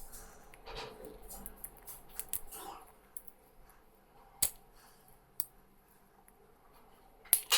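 3D-printed plastic support material being picked and pried off a printed part: irregular scratchy scraping and small clicks, with a sharp snap about halfway through and the loudest snaps near the end.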